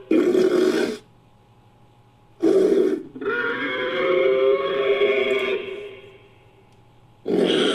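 Made-up dinosaur calls for a fictional Protoceratops–Megaraptor hybrid, mixed from edited creature sound effects. A short rough call comes first, a second short call follows about two and a half seconds in, then a longer pitched call that fades away, and a new call starts near the end.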